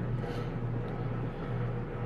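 Steady low background hum, with a faint brief rustle about a quarter second in.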